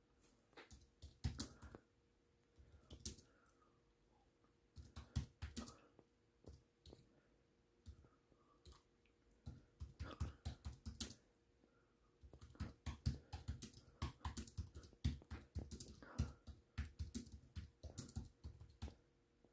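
Faint, irregular clusters of quick light clicks and taps, with short quiet gaps between them and the busiest run in the second half.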